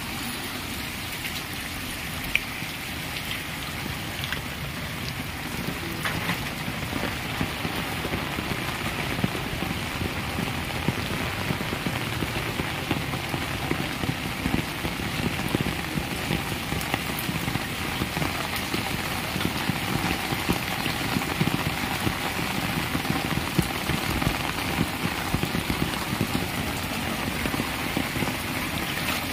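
Heavy monsoon rain falling steadily on floodwater, a dense patter of drops over the rush of flowing floodwater.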